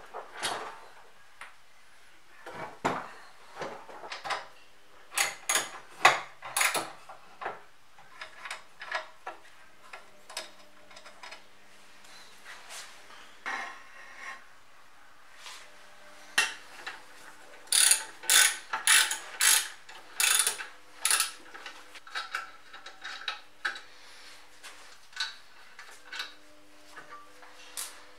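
Socket ratchet wrench clicking in quick bursts of short strokes while bolts on a metal machine frame are undone, with a few knocks and clinks of metal parts being handled in between.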